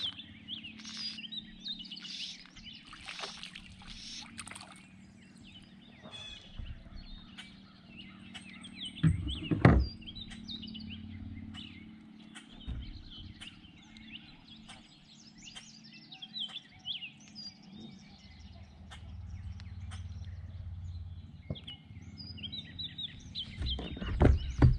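Birds singing and chirping around a pond, with small knocks from a fishing rod being worked in a kayak. About nine to ten seconds in there is one loud thump, and in the last second louder splashing and knocking as a bluegill is pulled out of the water into the kayak.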